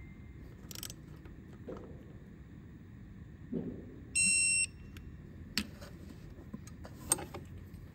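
An electronic torque wrench gives one steady beep, about half a second long, a little after the middle, as the timing-belt tensioner bolt is tightened to 20 Nm. A few light clicks and knocks of the tool come before and after it.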